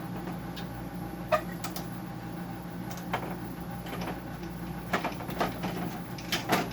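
Scattered clicks and knocks of tools and metal parts being handled while a dehumidifier's refrigerant tubing is taken apart, the sharpest one near the end, over a steady low hum.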